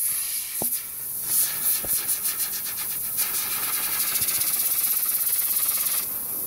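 Compressed air hissing from an air-compressor blow gun aimed at a fidget spinner. The blast starts a little over a second in with a fast pulsing flutter, settles into a steady hiss, and drops away near the end.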